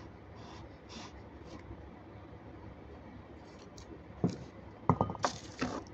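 A spoon scraping in a plastic tub of set jelly, faint at first, with a few sharper knocks and clatters against the tub near the end.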